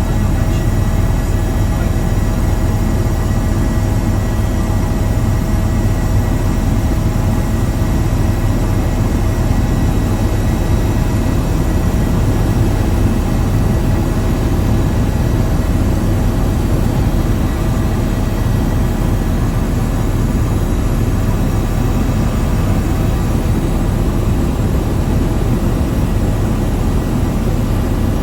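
Steady, loud drone of a light aircraft in flight, its engine noise unbroken, with a low hum and a few faint steady tones above it.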